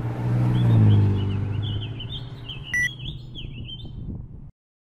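A vehicle engine hum swells to a peak about a second in and fades away, with small birds chirping over it. A short electronic beep sounds near three seconds in, and everything cuts off abruptly just before the end.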